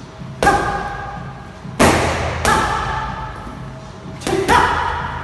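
Boxing gloves smacking leather focus mitts in pad work: five sharp strikes, spaced apart at first and then a quick double near the end, each ringing briefly after.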